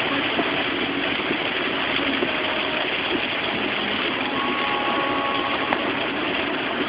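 Heavy rain falling on a moving car's roof and windscreen, mixed with the car's road and engine noise, heard from inside the cabin as a steady, even hiss.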